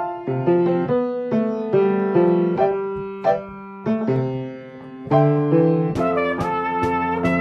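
Solo piano playing a melodic intro in chords and single notes. About six seconds in, a drum kit joins with sharp stick hits, roughly two a second, as the band comes in.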